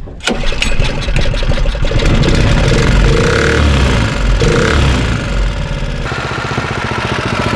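Small single-cylinder gas engine on a long-tail mud motor, rated at about 7 horsepower, catching just after the start and running with a rapid, even firing beat. It gives two brief revs in the middle, then settles to a lower, steadier run near the end.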